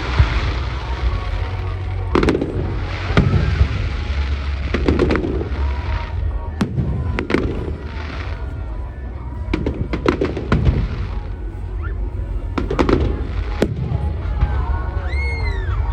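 Fireworks display: firework shells bursting overhead in a string of sharp bangs every second or two, about a dozen in all, with crackling between them.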